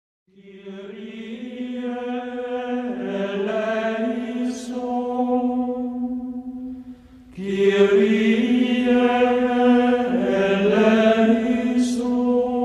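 Slow wordless chanted singing with long held notes, in two phrases; it dips briefly about seven seconds in and comes back louder.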